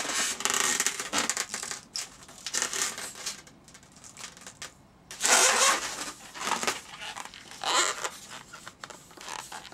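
Latex twisting balloon being stretched and squeezed in the hands, rubbing against itself and the fingers in irregular bursts. The loudest burst comes a little past halfway, with another near the end.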